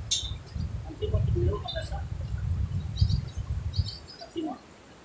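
Wind buffeting the microphone in uneven gusts, dying down about four seconds in, with short bird chirps heard over it several times.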